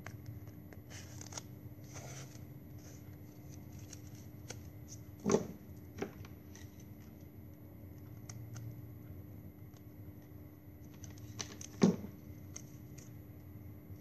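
Hands handling plastic drinking-straw craft pieces: light rustling and small clicks, with two sharper knocks, one about five seconds in and one near the end.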